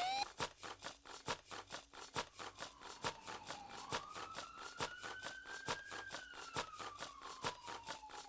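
High heels clicking on cobblestones, several sharp clicks a second, over a faint tone that dips, slowly rises, then slowly falls.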